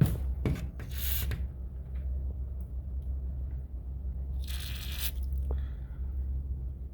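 A WD-40 aerosol can spraying the garage door rollers: two short hissing bursts about half a second each, roughly three and a half seconds apart. A sharp click comes right at the start, and a steady low hum runs underneath.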